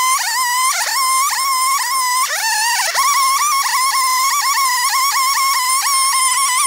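Stihl two-stroke chainsaw running at full throttle under load, its pitch holding high but dipping briefly and recovering many times as the chain bites into the wood during a lengthwise ripping cut.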